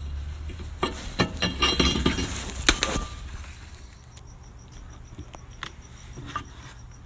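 A quick run of sharp clicks and clinks from metal objects being handled during the first three seconds, then a few scattered clicks over a faint, evenly pulsing high tone.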